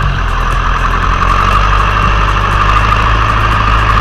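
An engine running steadily at an even speed: a low hum with a steady higher whine above it.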